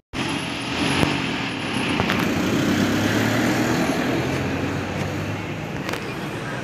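Road traffic: vehicle engines running with a steady low hum under a wash of street noise, and a few sharp knocks about one, two and six seconds in.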